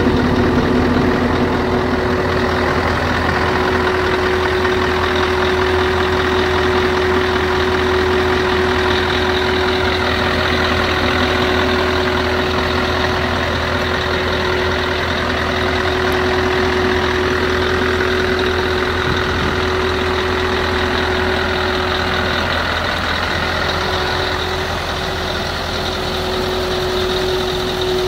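Scania R500 tractor unit's V8 diesel engine idling steadily.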